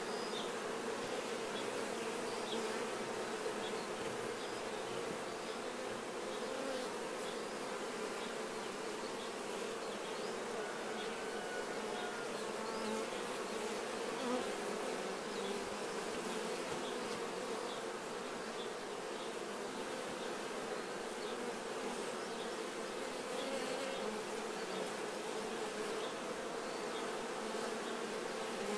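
Honeybees buzzing in a steady, continuous hum, many bees at once.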